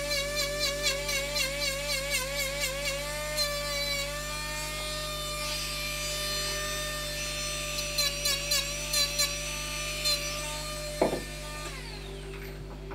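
Handheld rotary carving tool running with a steady high whine, its pitch wavering and loudness pulsing as the burr is pressed into and eased off the wood. Near the end there is a sharp knock, then the motor is switched off and winds down.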